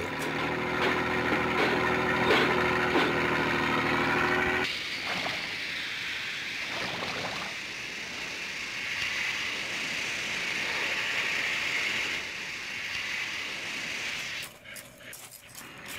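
A power shovel's engine running steadily while it digs rock. About four and a half seconds in, the sound changes abruptly to the steady rush of water from a hose washing excavated bedrock clean. The rush drops away shortly before the end.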